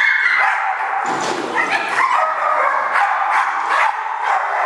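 A dog yipping and whining in an almost unbroken run of high, wavering cries.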